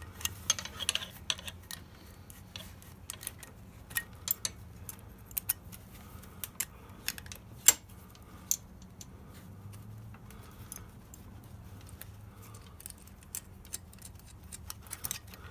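Irregular light metallic clicks and clinks as the throttle cables are worked loose from the CVK carburetor's cable bracket and throttle pulley with fingers and a small wrench. One click about eight seconds in is sharper and louder than the rest.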